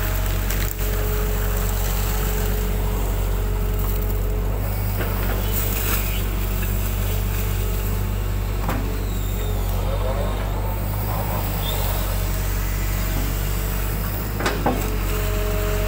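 Hitachi hydraulic excavator's diesel engine running steadily under working load, heard from the operator's cab, as the arm and bucket dig mud from a canal and dump it on the bank. A few short knocks of the bucket and arm come through over the engine.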